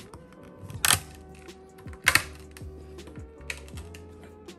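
Allspice (pimento) berries cracking under the flat of a chef's knife pressed onto a bamboo cutting board: a few sharp, short cracks, the loudest about one and two seconds in. Background music plays throughout.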